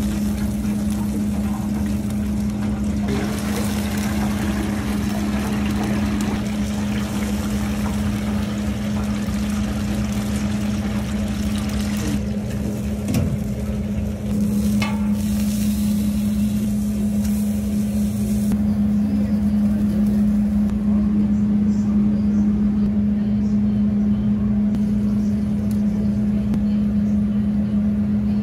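Oil sizzling in a deep fryer around a sausage in the wire basket, over a steady low hum. The sizzle drops away about two-thirds of the way through while the hum carries on.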